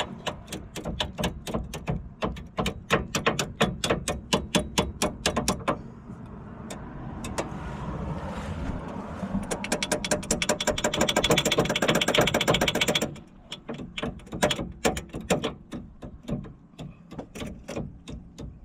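Hand ratchet wrench clicking as it tightens a tie rod nut: steady strokes of about five clicks a second, a fast unbroken run of clicks for a few seconds past the middle, then slower, scattered clicks.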